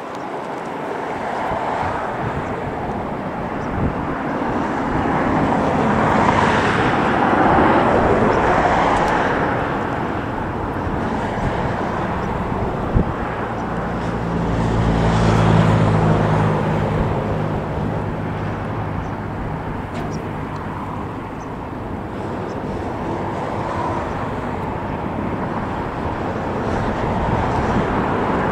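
Jet aircraft engine noise around a busy airport, a broad rumble that swells and fades twice, with a low droning hum for several seconds in the middle. Wind buffets the microphone.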